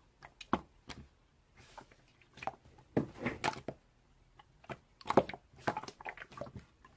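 Slime being squished and pressed by hand, making clusters of small wet clicks and pops with short quiet gaps between.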